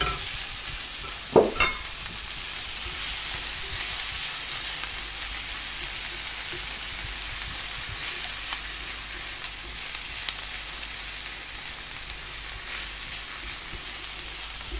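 Bacon, onions and peas sizzling steadily in a frying pan as they are stirred, on medium-low heat with the pan cooled by the freshly added cold peas. Two sharp knocks come about a second and a half in.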